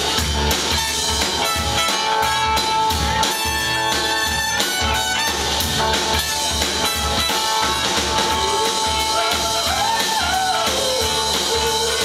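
Live pop-rock band playing: drum kit keeping a steady beat under electric guitar, bass, piano and a trumpet, with a held note and a wavering melody line in the second half.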